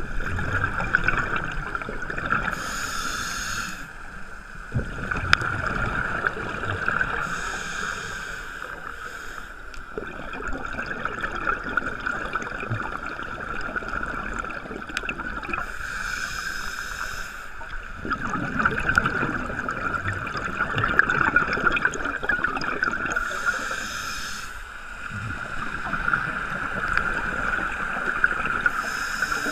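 Scuba regulator breathing heard underwater through a camera housing: a hissing inhalation every five to eight seconds, five in all, with rumbling, gurgling exhaled bubbles between them, over a steady high-pitched hum.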